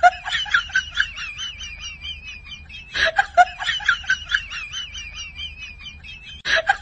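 Rapid, repeated high-pitched squawking calls from an animal, in two bouts of about two and a half seconds each, with a short burst near the end.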